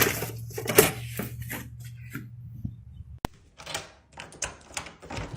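Irregular light clicks and taps over a low hum; about three seconds in a single sharp click, after which the hum is gone and the clicks are sparser.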